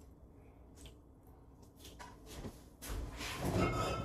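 Quiet kitchen with a few faint knocks, then about a second of louder scraping and rustling handling noise near the end as the refrigerator's freezer drawer is reached.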